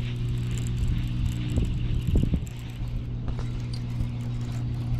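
A steady low electrical hum with overtones, the audio fault of a misbehaving GoPro, with a few knocks about two seconds in from the fishing rod and kayak being handled.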